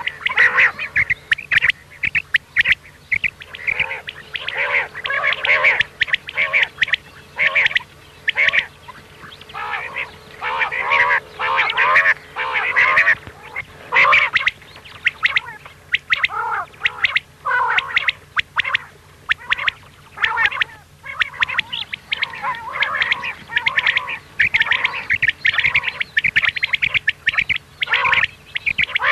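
Common quail (batair) calls from a lure recording for hunting: short calls in quick succession with only brief gaps between them, over a faint steady hum.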